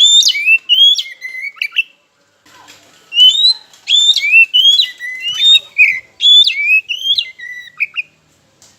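Oriental magpie-robin (kacer) singing loud, whistled phrases of quick sliding notes: a burst of about two seconds, then after a short pause a longer run of song.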